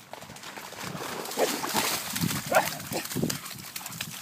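Cocker spaniel snuffling and moving about in wet grass and shallow puddles, with short animal noises about one and a half and two and a half seconds in.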